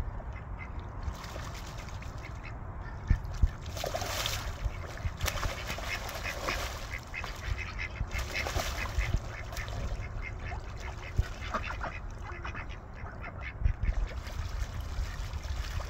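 Ducks quacking on a pond in a run of short, rasping calls, busiest between about four and nine seconds in, with some splashing, over a steady low rumble.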